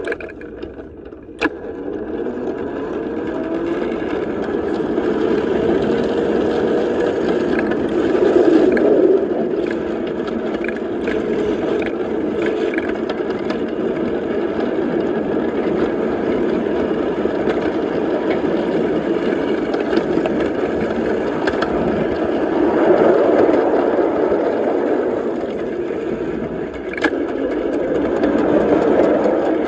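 Battery-powered ride-on miniature locomotive running along the track: a steady motor whine that rises in pitch as it gathers speed over the first several seconds, with wheels clicking over the rails. A sharp knock comes about a second and a half in and another near the end.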